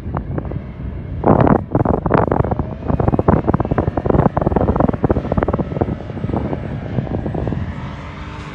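Heavy, irregular wind buffeting on the microphone over a running motor. The buffeting eases near the end, leaving the motor's pitch sliding slightly.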